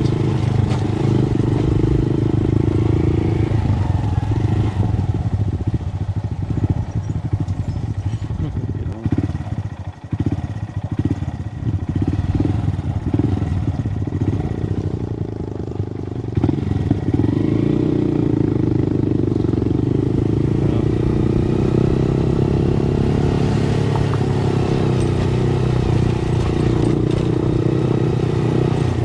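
Motorcycle engine running under way, easing off and running unevenly for several seconds midway, then pulling steadily again from a sudden rise in level about halfway through.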